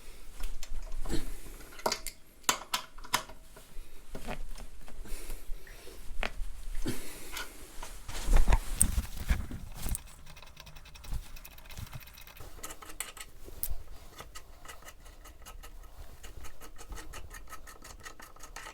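Hand tools clinking and knocking on metal as the motorcycle's brake caliper is worked loose, with a fast, even run of clicks over the last several seconds.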